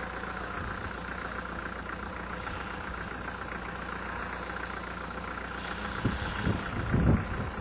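Radio-controlled model aeroplane engine running at a steady pitch, with a few low rumbles near the end.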